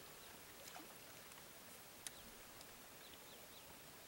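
Near silence: faint outdoor hiss with a few faint, short, high descending chirps from small birds and a single faint click about two seconds in.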